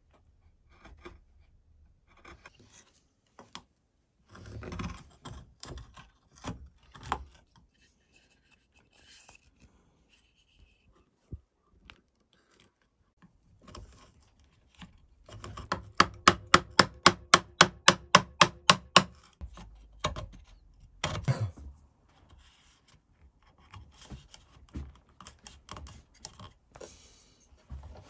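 Hand-tool work on a softwood toy fuselage: a chisel paring and scraping shavings in short, scattered strokes. About halfway through comes a quick, loud run of about fifteen scraping strokes, four or five a second.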